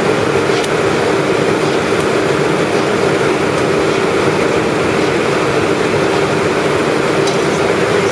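Ice-slurry pumping plant running with a loud, steady mechanical drone, a constant hum with a hiss above it.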